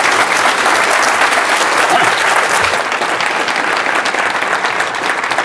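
Audience applauding: dense, steady clapping from a room full of people.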